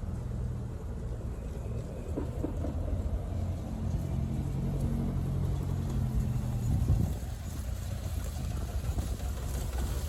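A 1979 Alfa Romeo Spider's engine running with a steady low note, which fades away about seven seconds in, with wind rumbling on the microphone.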